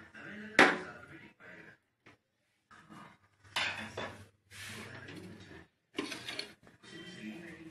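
Metal tool clinking and scraping against the sheet-metal chassis and parts of an opened microwave oven, with one sharp clack about half a second in, the loudest sound, then several shorter bursts of clatter.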